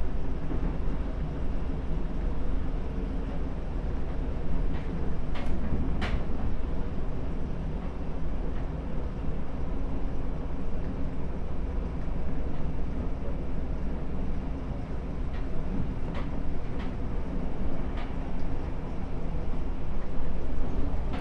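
Seibu 6000 series electric train running between stations, heard from inside the car: a steady rumble of wheels on rail with faint steady tones from the running gear and a few sharp clicks.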